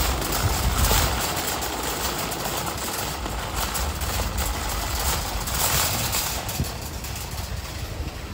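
A car running, heard from inside the cabin: a steady low rumble with a hiss of noise over it.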